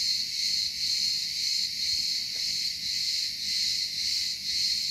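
A steady, high-pitched chorus of insects that swells and fades gently. It runs continuously behind everything else.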